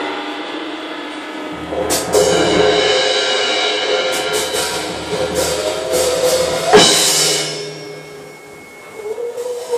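Live rock band playing loud, sustained droning tones with drum and cymbal crashes. The loudest crash comes about seven seconds in, after which the music drops back to a quieter drone.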